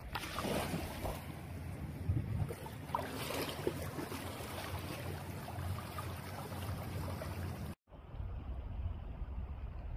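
Flash-flood water rushing through a wadi after heavy rain: a steady rushing wash, with low rumble of wind on the microphone. It breaks off for an instant near eight seconds.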